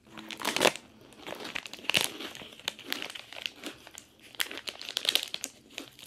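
Plastic snack wrapper crinkling as it is handled and folded in the hands: a run of irregular crackles and rustles, loudest about half a second in and again around two seconds.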